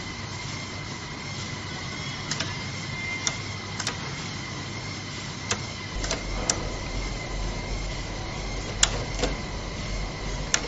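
Industrial shoe sewing machine running: a steady motor hum with a high whine, a low drone coming in about six seconds in, and scattered sharp clicks.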